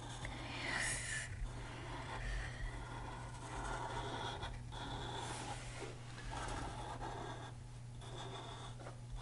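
Felt-tip marker rubbing across paper in a series of drawing strokes, each a second or two long with short breaks between, as a pencil outline is traced over in ink. A low steady hum runs underneath.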